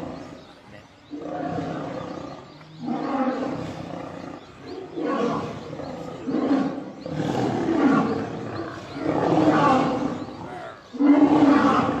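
Lions growling in a string of separate growls, each about a second long, louder toward the end: the sound of lionesses pinning and biting a male lion in a fight.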